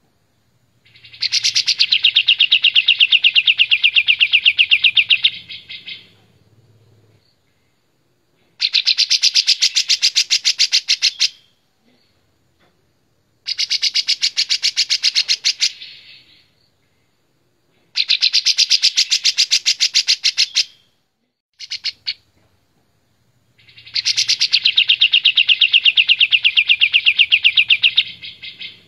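A caged kapas tembak bulbul singing loud bursts of rapid, evenly repeated notes. Each burst lasts a few seconds, with short pauses between them and one very short burst shortly before the last.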